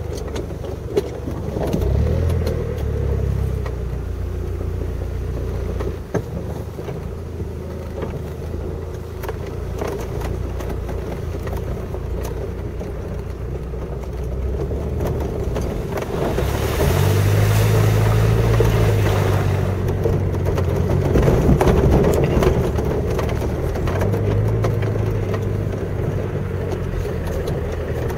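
Land Rover Discovery's engine running as it drives slowly over a rutted, muddy off-road track, with scattered knocks and rattles as it bumps along. About two-thirds of the way in, the engine note rises for a few seconds with a rush of noise.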